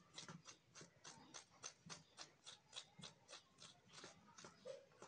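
Faint, even ticking, about four sharp ticks a second.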